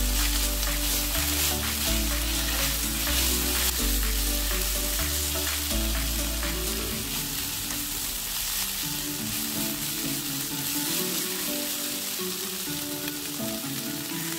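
Pork belly, eggplant and lotus root sizzling as they stir-fry in oyster sauce in a nonstick pan, stirred with wooden chopsticks, over background music.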